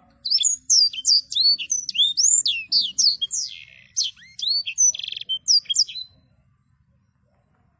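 A sanger songbird singing a fast, rolling song of high whistled notes, most sweeping downward, with a few quick buzzy trills, breaking off about six seconds in.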